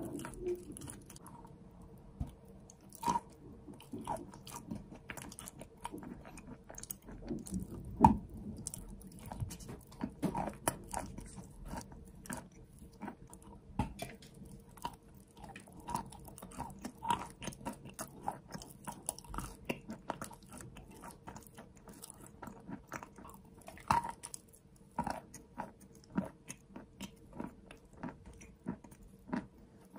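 Close-up chewing and biting of a lump of chalk coated in clay paste: many short crisp crunches with wet chewing between them, the loudest bite about eight seconds in. A faint steady hum lies underneath.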